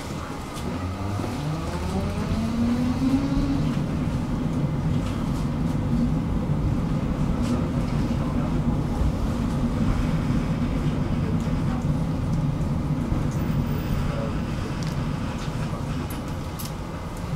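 Electric tram accelerating: its traction motors give a whine that rises in pitch over the first three seconds or so, then settle into a steady low running rumble of wheels on rails.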